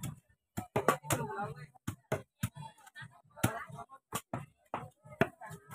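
A large knife chopping through a trevally's head on a wooden chopping block: a string of sharp, irregular knocks and cracks, with faint voices murmuring in between.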